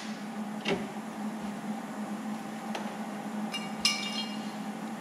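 A pause between MIG tack welds on a sheet-metal patch panel. A steady low hum runs under a light click about a second in and a short metallic clink near the four-second mark.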